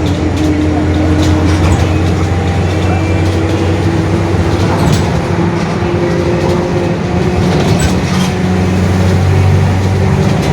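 Mercedes-Benz OF-1721 bus under way, its differential howling very loudly over the engine and running noise, the whine rising a little in pitch in the second half.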